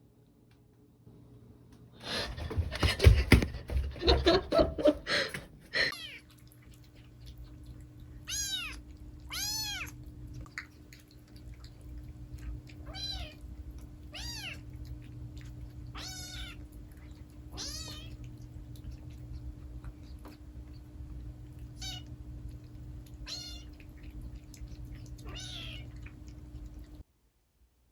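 A cat meowing: about ten short, high, arching meows, often in pairs. A few seconds of loud scuffling noise come near the start.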